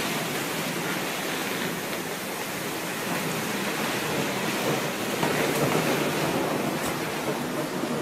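Steady hiss of heavy rain during a thunderstorm, swelling a little louder about five seconds in.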